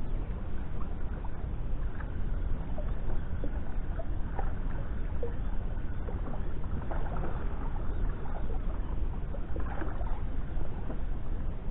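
Steady low rumble of wind buffeting the microphone, with faint scattered small ticks over it.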